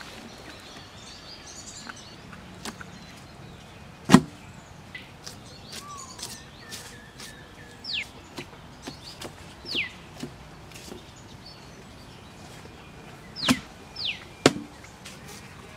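Knife cutting raw beef ribs on a metal tray, with scattered sharp knocks of the blade; the loudest comes about four seconds in and two more come near the end. Birds give several short whistles falling in pitch.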